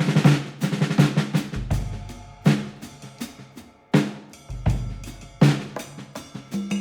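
Music with a drum kit beat, kick drum and snare hits over pitched instruments, starting abruptly out of silence.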